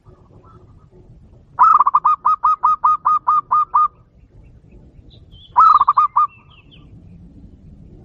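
A dove calling: a rapid run of about a dozen loud, evenly spaced notes, roughly five a second, then a shorter run of about five notes some two seconds later. A few faint higher chirps from another bird come alongside the second run.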